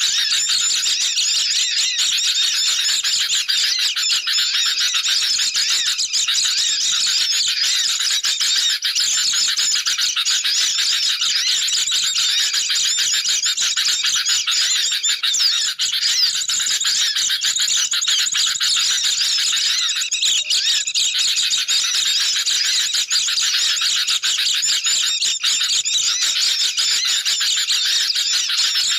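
Dense, unbroken chattering of many small songbirds: sooty-headed bulbuls calling noisily, mixed with white-eyes' high chirps and trills. This is a bird-catchers' lure recording of agitated calls, used to draw birds in.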